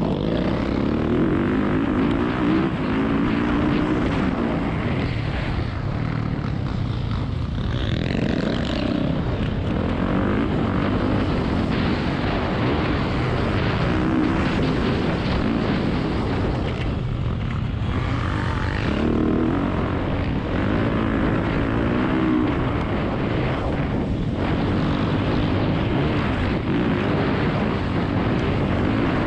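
Motocross bike's engine heard from on board at race pace, its revs rising and falling over and over as the rider accelerates and backs off through the track's sections.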